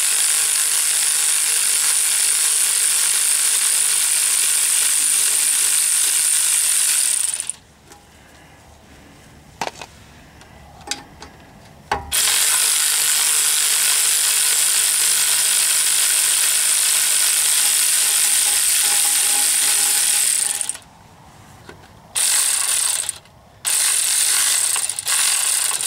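ACDelco cordless electric ratchet spinning out transmission pan bolts: a steady motor whirr in two long runs of about eight seconds each, with a pause of a few seconds and a few clicks between them, then two short bursts near the end.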